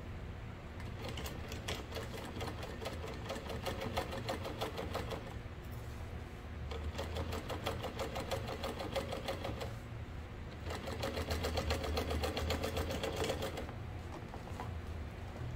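Juki DU-1181N industrial walking-foot sewing machine running at a steady speed, its needle and feed clicking rapidly over a low motor hum as it top-stitches a side-panel seam on a tote bag. It stitches in three runs, with short pauses about five seconds and ten seconds in.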